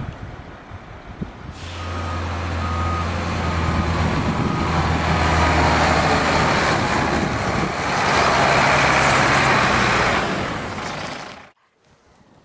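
Snowplow truck working: its engine runs with a steady low drone, reversing beeps sound a few times about two seconds in, and a loud rushing noise swells twice. The sound cuts off suddenly near the end.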